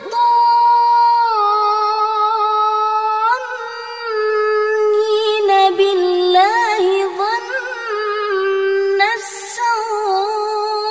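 A woman reciting the Quran in a melodic chant: one voice holds long drawn-out notes, with ornamented turns of pitch in the middle and a brief dip about three and a half seconds in.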